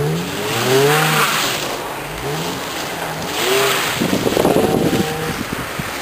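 A car's engine revving up and down repeatedly as its drive wheels spin in deep snow while it is pushed free. The wheelspin whine rises and falls in pitch, with noisy surges of tyres churning snow.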